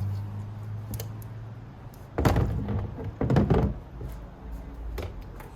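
A powered screwdriver's motor hum dies away in the first second. Then come two loud clattering thunks, about two and three and a half seconds in, and a few lighter knocks, as disassembled parts are handled and set down.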